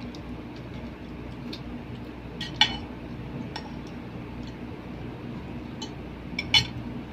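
Metal cutlery clinking against plates and dishes while eating, in scattered light clinks with two louder ones, about two and a half seconds in and near the end. A steady low hum runs underneath.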